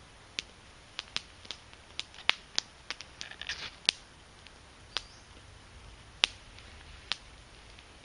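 Small split Douglas fir wood fire crackling: irregular sharp pops, with a quick run of small crackles about three and a half seconds in.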